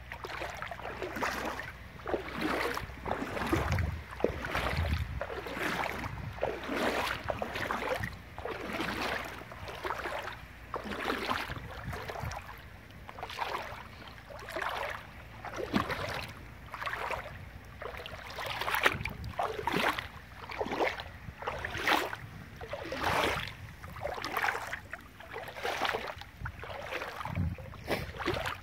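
Footsteps wading through shallow river water over a sandy bottom, a slosh and splash with each stride, about one step a second.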